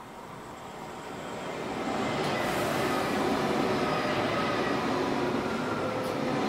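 ETR 610 electric high-speed train passing through a station: the rush of the approaching train swells over the first two seconds, then the steady noise of wheels on rails as the carriages go by, with faint steady whining tones and a brief hiss about two and a half seconds in.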